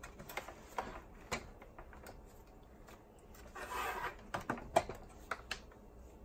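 Scattered clicks and taps of a screwdriver and hands on an opened boombox's plastic chassis as its screws are being taken out. A brief rustle comes about four seconds in, and the sharpest click just before five seconds.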